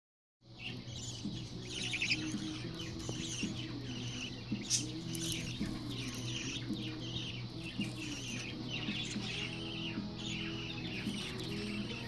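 A group of fledgling budgerigars chirping continuously, many short high chirps overlapping one another.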